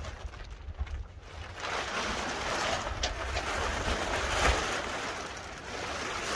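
A large silver plastic tarp rustling and crinkling as it is dragged and spread over a camper, starting loudly about a second and a half in. Wind rumbles on the microphone.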